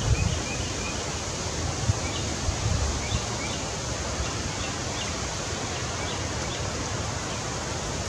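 Steady outdoor hiss with wind rumbling on the microphone, and faint short high chirps of small birds repeating every half second or so through most of it.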